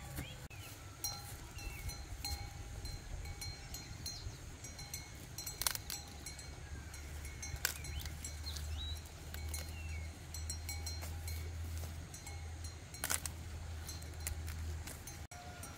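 Tinkling of a bell on a grazing cow, ringing on and off, with a few sharp snaps as ears of corn are broken off the stalks.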